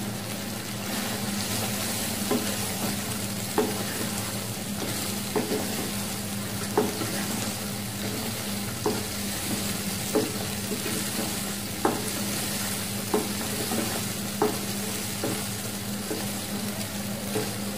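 Wooden spatula stirring a thick chicken curry in a non-stick wok, the gravy sizzling steadily. The spatula knocks softly against the pan about every second or so.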